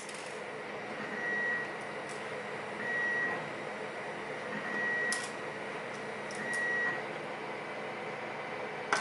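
An electronic beep, one high steady tone about half a second long, repeating roughly every second and a half to two seconds, with a few small clicks in between.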